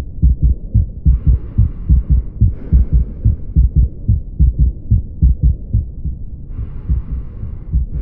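Human heart sounds on auscultation: a regular run of low beats. A soft hiss rises over them twice, each time for about a second, once about a second in and again near the end.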